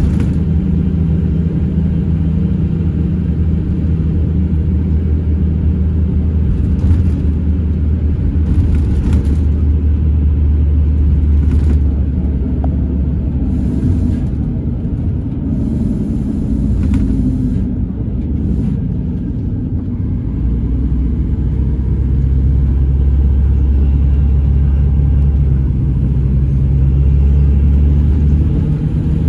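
Scania Irizar Intercentury coach's diesel engine and road noise heard from inside the cabin while driving: a steady low rumble that eases a little past the middle and then builds again.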